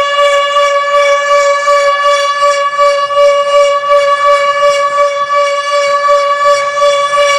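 HOR Siro-Drone tornado siren sounding its steady Alert signal: one held pitch with a dense stack of overtones and a slight flutter in loudness.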